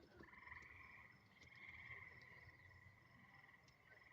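Faint night chorus of frogs: overlapping trills that swell and fade every second or two over a steady background drone.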